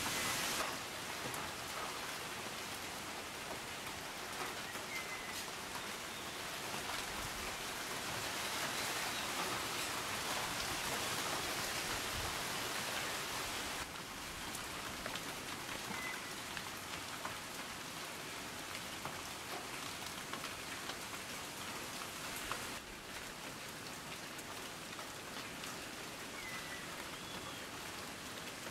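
Heavy rain falling steadily on dense tropical foliage, a constant hiss with the fine patter of individual drops. The level drops abruptly about 14 seconds in and again about 23 seconds in.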